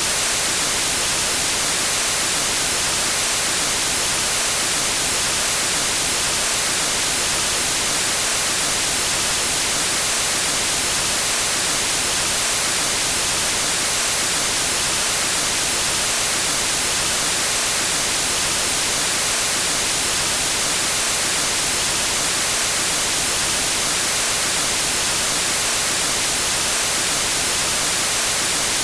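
Steady white noise, the hiss of TV static, even and unchanging and strongest in the highs.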